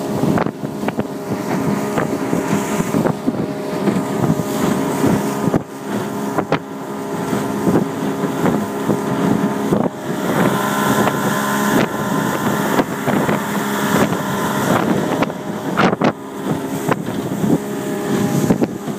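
Outboard motor driving a small power dory under way, running steadily, with wind on the microphone. A few sharp knocks come through, and the engine note shifts about ten seconds in.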